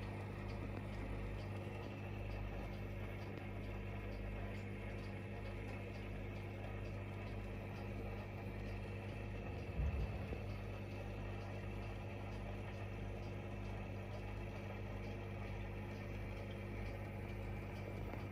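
Aquarium equipment humming steadily, with one brief bump about ten seconds in.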